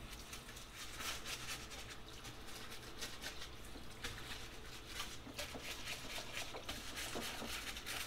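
A SmartWasher parts washer in use: oily socket-head bolts and a cover are scrubbed under its flowing cleaning fluid, with irregular scratchy strokes and splashing.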